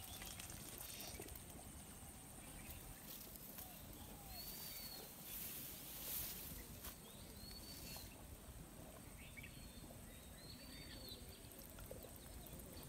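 Quiet rural ambience with a bird giving a short, arching high call about every three seconds, and a few faint knocks and rustles from handling the catch.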